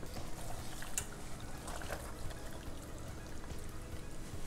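Silicone spoon stirring rigatoni through a thick cream sauce in a pot: soft, irregular wet squelching, with a sharper click about a second in.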